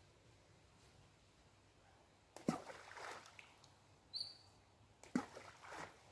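Two hand-thrown balls of fishing groundbait splashing into a pond, about two and a half seconds apart, each a sharp hit on the water with a short splash after it.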